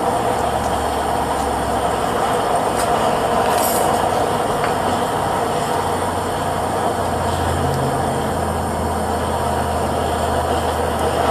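Steady roar of a propane-fired melting furnace's burner, running at an even level with a low hum underneath.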